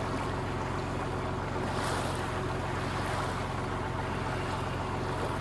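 Engine of an old wooden fishing boat running steadily under way, a constant low throb with a fast, even pulse, over the hiss of water rushing along the hull. A brief louder hiss comes about two seconds in.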